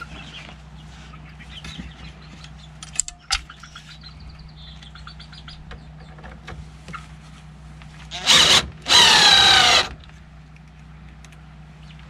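Cordless drill running in two bursts, a short one then one about a second long, its motor pitch wavering as the trigger is worked, with light handling clicks before it.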